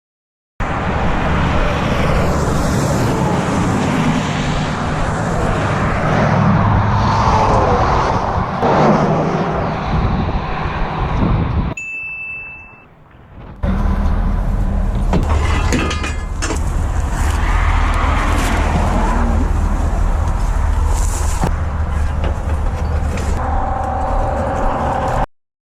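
Truck engine running with road noise, steady and loud. It drops away for about a second and a half near the middle, when a short high beep sounds, then comes back.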